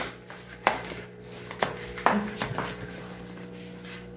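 Handling sounds as a newborn puppy is set down among cloths in a basin: a few sharp, irregular taps and knocks in the first two and a half seconds, over a faint steady hum.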